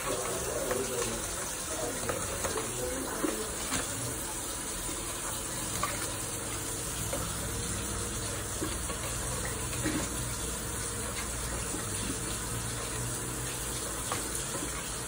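A steady hiss throughout, with a few faint scattered taps and clicks as a caique parrot clambers on and pecks at an empty cardboard paper-towel tube.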